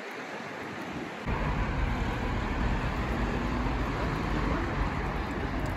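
Town street ambience with traffic noise. About a second in it jumps louder, and a deep low rumble comes in and stays steady.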